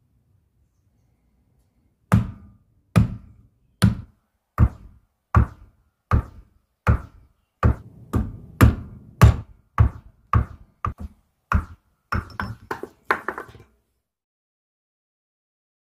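A hammer striking a steel drift held in the eye of a rusty sledgehammer head, driving out the old wooden handle stub: about eighteen sharp knocks, a little over one a second, quickening into a fast flurry near the end before stopping.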